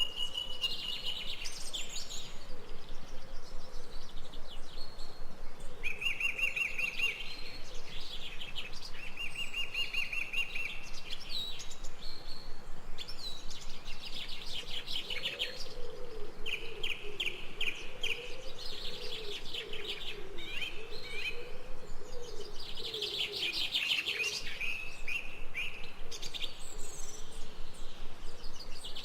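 Several birds chirping and calling together, with repeated rapid trills throughout and a low wavering call in the middle.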